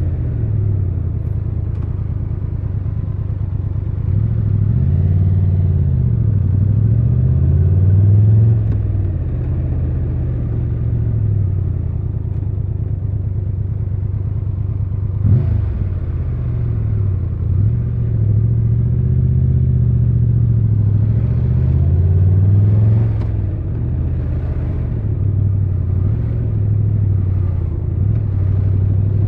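Triumph Tiger 1200 Rally Pro's three-cylinder engine under way in traffic, its pitch rising and falling again and again as the bike accelerates, shifts and slows. There is one sharp knock about fifteen seconds in.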